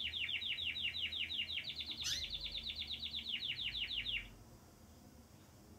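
Belgian canary singing a rapid trill of repeated high notes, about ten a second, with one quick rising note about two seconds in; the trill stops a little after four seconds.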